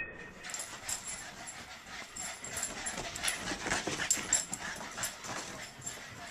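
Boston terriers playing rough, with short dog noises over a quick, irregular run of clicks and taps.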